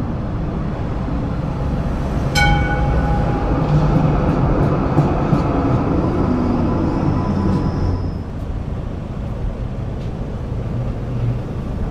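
A tram passing close by, its steel wheels rumbling steadily on the rails, loudest in the middle as it goes past. About two seconds in, a single bell-like ring sounds and fades over about a second.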